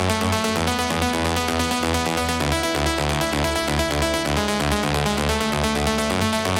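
Electronic dance music with a fast, steady beat and heavy bass.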